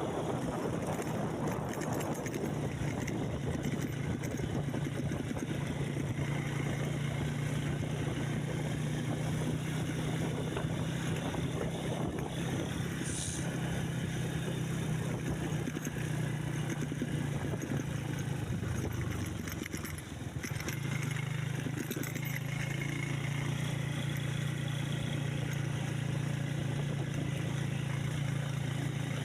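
A motor vehicle's engine running steadily while under way, with its low hum dropping briefly about twenty seconds in and then picking up again.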